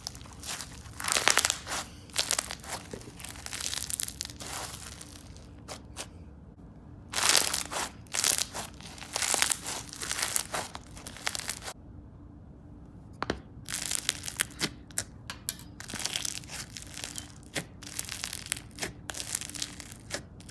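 Foam-bead slime being stretched, squished flat and poked by hand: dense crunching and crackling of the foam beads with bubble pops. There are two brief quiet pauses, about six and twelve seconds in.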